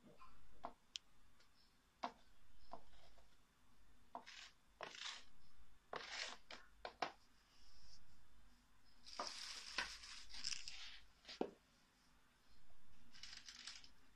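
Light handling noises from the plastic capsule-filler parts: a series of short scraping, rustling strokes with scattered small clicks, the longest and loudest strokes a little past the middle.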